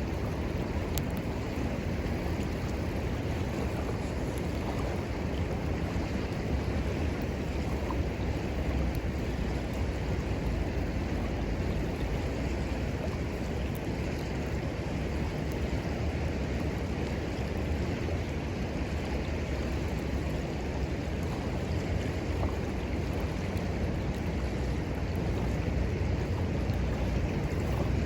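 Steady rushing of a river, with wind rumbling on the microphone and a few faint crackles from the wood fire.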